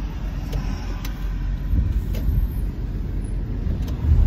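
Car interior noise while driving: a steady low rumble from the road and engine, with a few faint clicks and one louder low thump near the end.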